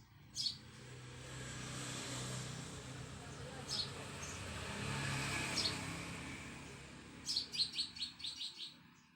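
Small birds chirping: a few single high chirps, then a quick run of about eight near the end. Under them is a broad rush of noise that swells up over a couple of seconds and fades away again.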